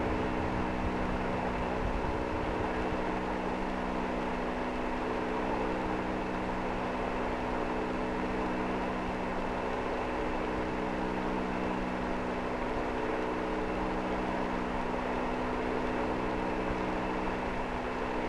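Steady radio static from an open air-to-ground communications channel between transmissions: an even hiss with a constant hum of several held tones.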